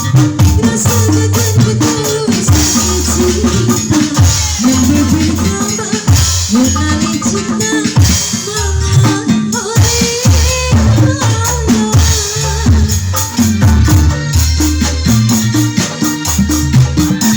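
Loud music played through a sound system under test: a heavy bass line with drums and shaker percussion and a melody on top.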